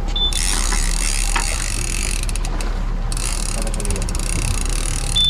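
Conventional saltwater fishing reel being cranked hard during a fish fight, with a fast gear whir and clicking, over the steady low hum of the boat's engine. A short high beep sounds just after the start and again near the end.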